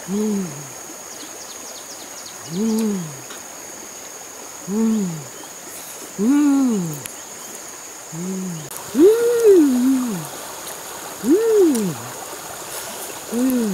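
A shallow river runs steadily over stones. Over it, a short call that rises and then falls in pitch repeats about every two seconds, and a thin high tone holds throughout.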